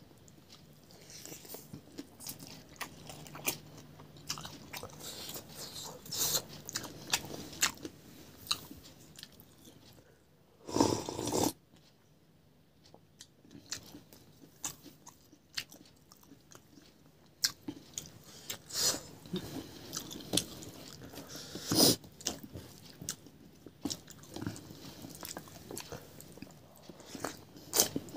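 A person chewing food close to the microphone, with many small crunches and wet mouth clicks. One louder, noisier burst comes a little before the middle.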